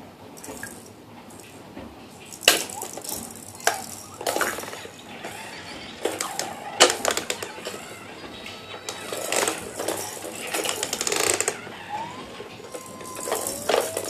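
Kitchen clatter: objects clinking and knocking irregularly, with several sharp louder knocks. Near the end come a couple of brief squeaky tones.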